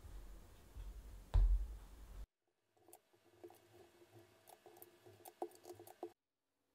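Hands pressing chapati dough down onto a countertop with a dull thump, then a plastic dough scraper cutting through the dough and tapping on the countertop in a run of small irregular clicks.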